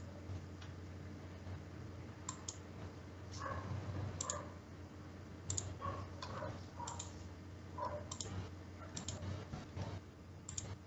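About a dozen sharp, irregularly spaced clicks over a faint steady low hum.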